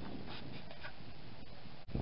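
Open-field ambience of a rugby match: wind rumbling on the microphone with a few faint, distant shouts from players. The sound drops out for an instant near the end at an edit.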